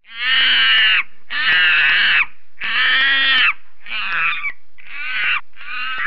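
An animal calling over and over: six harsh, pitched calls. The first three last about a second each and are the loudest; the later ones are shorter and quieter.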